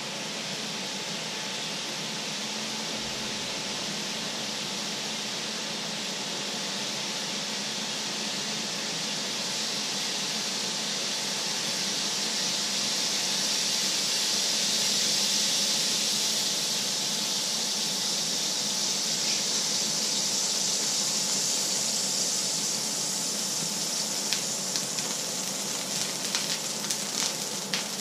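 Water boiling off in a hot pan on a stove: a steady sizzling hiss that swells toward the middle, then crackling pops over the last few seconds as the pan runs dry.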